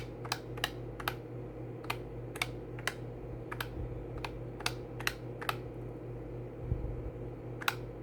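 Calculator keys clicking as the amounts are punched in again, one or two presses a second at an uneven pace, over a low steady hum.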